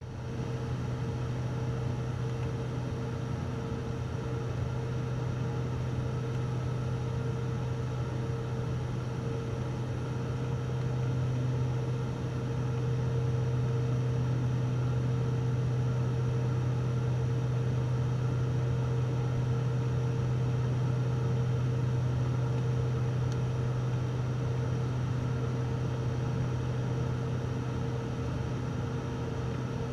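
Steady drone of a turboprop airliner's engine and propeller heard inside the cabin: a deep hum with a steady higher tone over it, getting a little louder about twelve seconds in.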